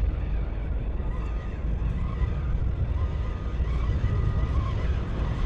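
Steady low rumble of wind buffeting the microphone outdoors, with faint short high tones coming and going above it.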